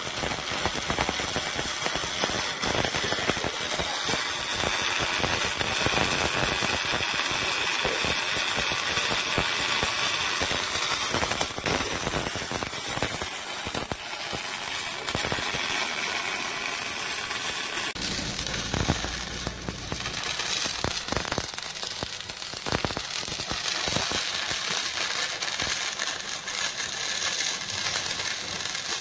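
MIG welding arc crackling and sputtering steadily as the wire feeds into the weld, a dense run of fine irregular crackles. About eighteen seconds in the crackle breaks off briefly and resumes more unevenly.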